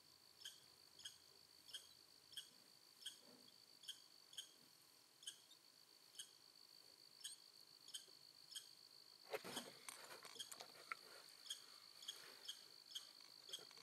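Faint insects: a steady high-pitched buzz with short chirps repeating evenly, a little under two a second. A brief rustling clatter about nine seconds in.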